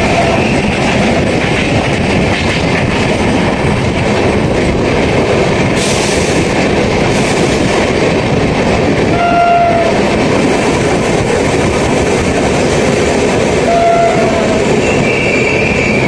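Loud, steady rumble and clatter of a loaded freight wagon rake running past close by on the next track, wheels on rails. Short horn toots sound about nine and fourteen seconds in.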